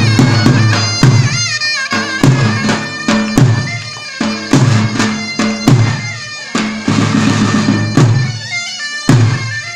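Davul and zurna playing a halay dance tune. The shrill double-reed zurna carries an ornamented melody over the davul bass drum's steady deep beat, a little under two strokes a second.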